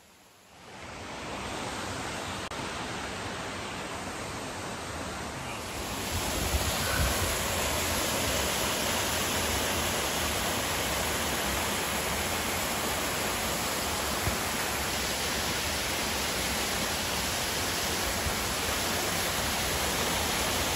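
A small waterfall pouring down a steep rock face: a steady rush of falling water, which grows louder about six seconds in.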